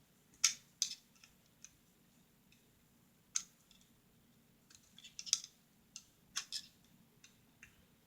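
Irregular sharp metal clicks of a small screwdriver working the screw above the tang of a metric FN FAL lower receiver, with a quick run of clicks about five seconds in.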